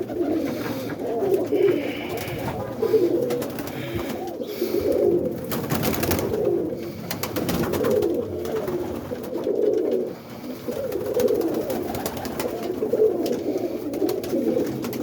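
Several domestic roller pigeons cooing continuously, their low coos overlapping.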